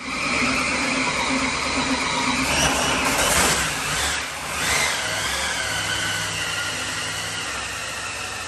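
540ci big-block Chevy running on an engine dyno with a steady high whine over the engine note. About three seconds in the revs briefly surge, then fall away, and the engine settles back to steady running.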